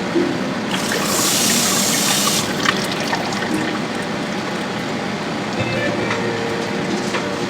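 Water running from a tap for about two seconds, starting just under a second in, with a few light clicks of handling around it.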